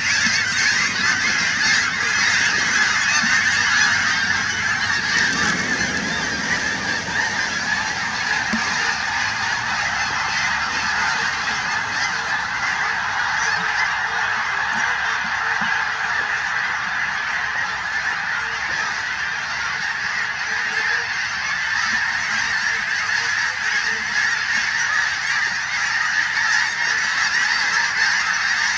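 A very large flock of snow geese in flight, calling all at once in a dense, unbroken chorus of honks.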